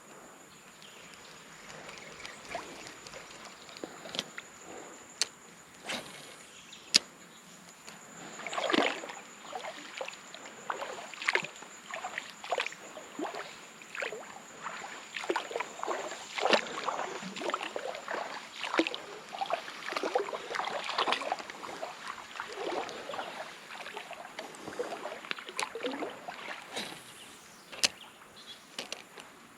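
Legs wading through shallow creek water: a long run of uneven sloshing swishes, with a few sharp clicks before and after.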